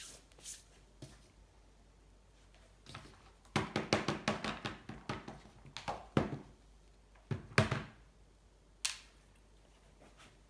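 Handling noises from small tools and metal parts on a workbench: a couple of seconds of clicks and rattles, then a few separate sharp knocks.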